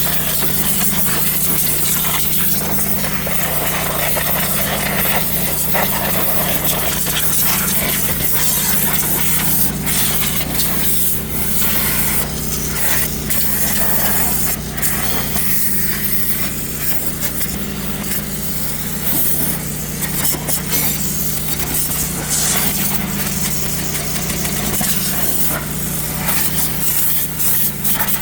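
Pressure washer running, its motor giving a steady hum under the hiss of the water jet, which rises and falls as the spray blasts grease and oil off an engine block.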